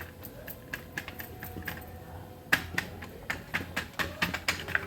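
Fingers patting and pressing soft, oiled roti dough flat on a sheet: a run of irregular light taps, with a few louder ones from about two and a half seconds in.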